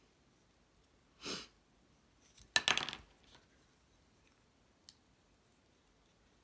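Quiet handling noises of paper craft work: a short whoosh about a second in, then a brief clatter of small clicks and rattles, the loudest sound, and a single sharp tick near the end.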